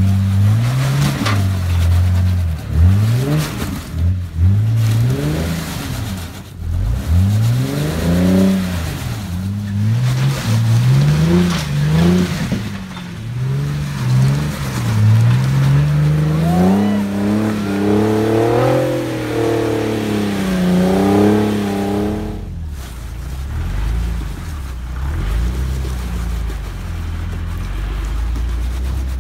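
Modified Jeep's engine revving in repeated bursts, its pitch climbing and dropping again and again as it crawls up a rock ledge. About three quarters of the way through, it settles to a lower, steady idle.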